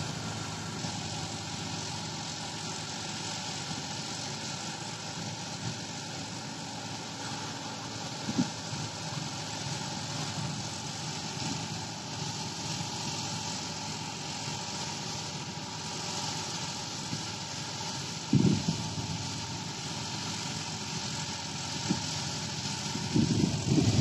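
Tractor-driven wheat thresher running, a steady mechanical drone as sheaves are fed in. Wind buffets the microphone in short low bumps about 8 and 18 seconds in and again near the end.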